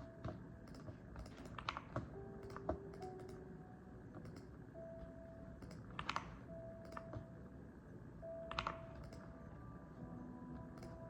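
Mechanical keyboard being typed on in scattered keystrokes, with a few louder clusters of clacks, over soft background music with held notes.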